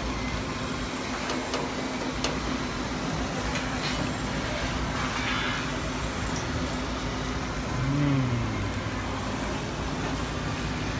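Construction-site background noise: a steady low machinery hum over a constant rumble and hiss, with a short falling tone about eight seconds in.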